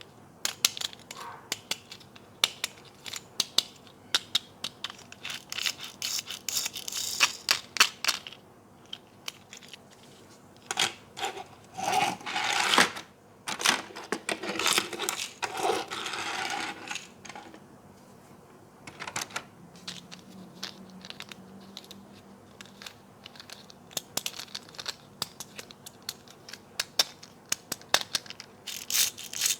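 Toy packaging being opened by hand: plastic and cardboard crinkling and tearing in several stretches, with many small sharp clicks and taps throughout.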